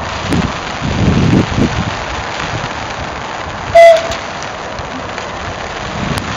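Southern Class 377 electric multiple unit drawing into the platform over a steady rushing hiss. About four seconds in it gives a single short, loud horn toot.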